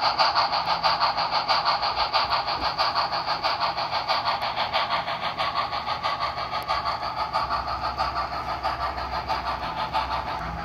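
HO scale model of Frisco 2-8-0 steam locomotive #1630, a Broadway Limited Blue Line engine, playing steam exhaust chuffs through its small onboard sound-decoder speaker: a quick, even beat of several chuffs a second, fading slightly near the end as the locomotive moves away.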